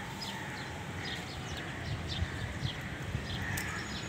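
Small blade cutting through woody plant stems, a few faint clicks and crunches, with small birds chirping in the background.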